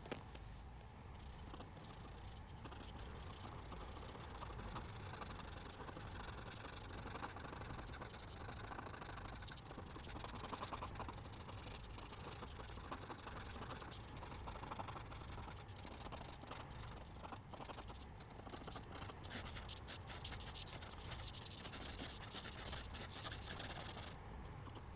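A Derwent pencil scratches and rubs on paper as shading strokes are laid down. The strokes become quicker and denser from about three quarters of the way through.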